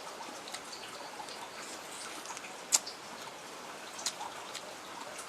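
Close-miked eating sounds of someone chewing quail meat and noodles: scattered wet mouth clicks and smacks over a steady hiss, with one sharper click about halfway through.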